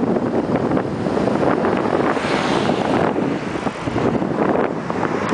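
Wind buffeting the microphone: a loud, gusty rumble with no steady tone.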